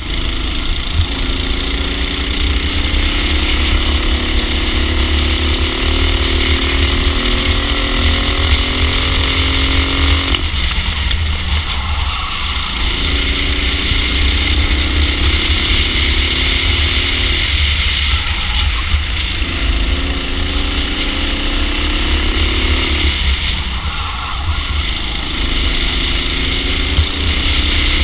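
Racing kart engine heard onboard at speed. The revs climb steadily through each straight and drop off sharply when it lifts for a corner, four times, with the longest pull lasting about ten seconds. A heavy low rumble runs underneath throughout.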